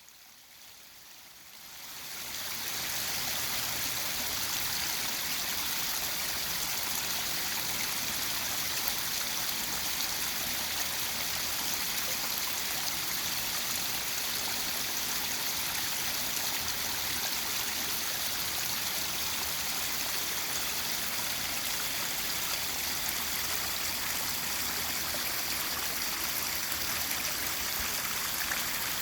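Waterfall running: a steady rush of falling water, fading in over the first two seconds or so and then holding even.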